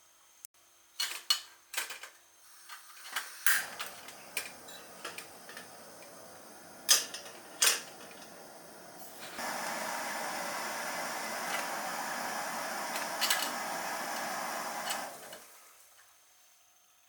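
Camp cooking on a small gas burner with a mess tin: a few clicks and knocks of metal gear being handled, then a steady hiss starts about three and a half seconds in. The hiss grows louder about nine seconds in, holds steady for around six seconds, and dies away near the end.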